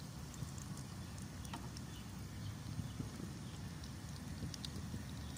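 Oil sizzling and popping around pieces of potato bread shallow-frying in a pan, over a low steady rumble. Metal tongs click once against the pan about a second and a half in.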